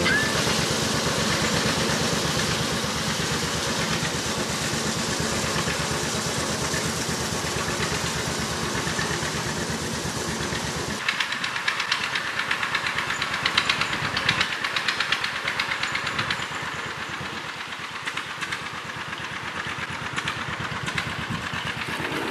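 An engine runs with a steady, fast firing rhythm. About eleven seconds in, the sound cuts to a small tractor's engine running, lighter and more rattly.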